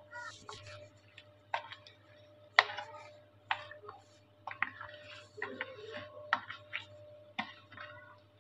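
Hand mixing oil-coated raw mango pickle pieces in a plastic bowl: irregular sharp clicks and taps as the pieces and fingers knock against the bowl, the loudest about two and a half seconds in, over a faint steady hum.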